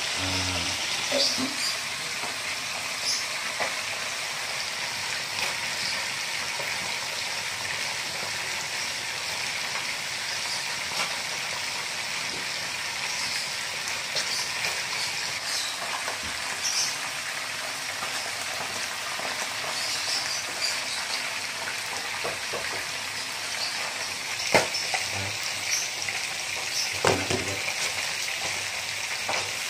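A pot of bamboo shoots and vegetables at a rolling boil under a glass lid: a steady bubbling hiss with scattered small pops, and a few sharper ticks near the end.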